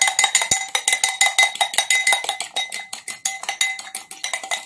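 An egg, baby oil and lemon mixture being beaten with a utensil in a bowl: rapid clinking against the bowl, about eight strikes a second, with the bowl ringing between strikes.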